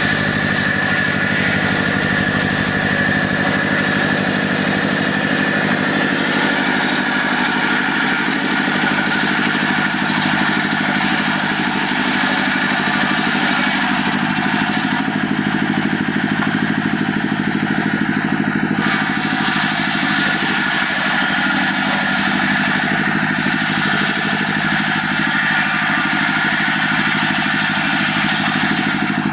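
Engine-driven saw running steadily under load as it cuts timber into planks, its engine note holding an even pitch without pauses.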